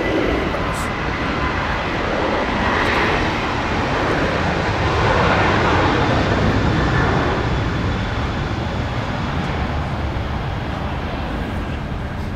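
Rushing engine noise of an aircraft passing overhead, swelling to its loudest about five seconds in and then slowly fading, over a steady low rumble.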